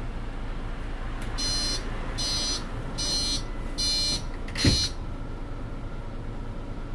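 Door-closing warning beeper inside a Mercedes-Benz NG 265 city bus, sounding five short beeps, with the doors shutting with a thump on the last beep. The bus's engine hums steadily underneath.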